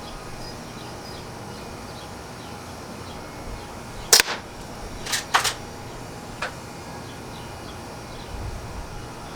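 Bara 1866 lever-action air rifle firing a single shot about four seconds in, followed about a second later by two quick sharp clicks and a fainter click.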